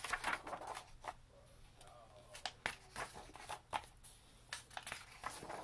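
Pages of a picture book being turned by hand: paper rustling and sliding, with a run of small crackles and taps.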